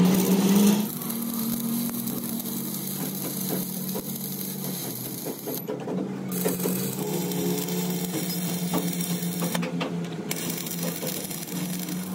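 Stick (shielded metal arc) welding on steel excavator bucket teeth: the electrode arc crackling and sizzling, over a steady low hum. The crackle drops out briefly twice.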